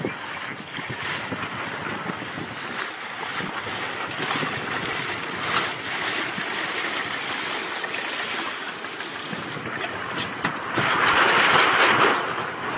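Water rushing and splashing at the bow of a sailing dinghy as it passes close, with wind rustling over the microphone; a louder rushing surge comes near the end.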